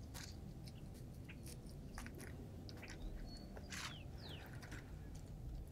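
Quiet, scattered clicks and rustles of dried maize cobs and a woven basket being handled. A couple of short high chirps come about four seconds in.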